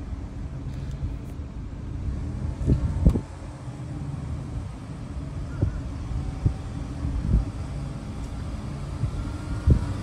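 Steady low rumble of a slowly moving vehicle, with several dull thumps through it, the strongest about three seconds in.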